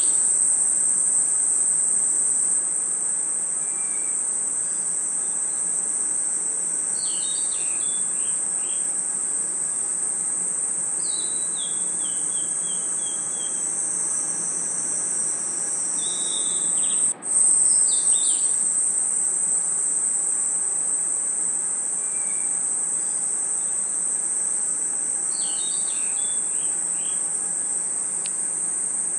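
A dense chorus of crickets and other night insects trilling in one steady, high continuous note, with a brief drop-out about two-thirds of the way through. A bird calls now and then over it, each call a short run of notes stepping downward.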